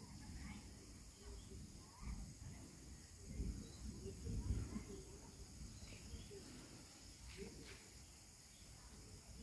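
Outdoor ambience: a steady high insect drone, with an uneven low rumble and a few faint, short chirps.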